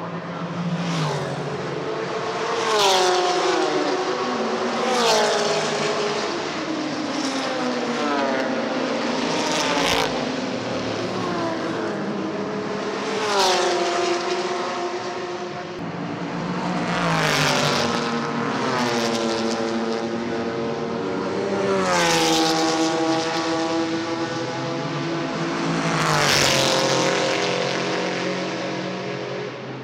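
Historic racing cars passing one after another at speed down the main straight, about nine pass-bys in all. Each engine note swells to a peak as the car goes by and then drops in pitch as it moves away.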